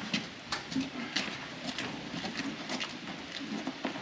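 Scattered light knocks and clicks, about five over four seconds, from hand work on a combine's feeder house.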